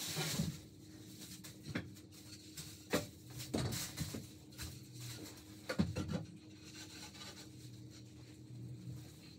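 Thin wooden slats being handled and fitted together: scattered light wooden knocks and taps, with rubbing and scraping of wood against wood between them.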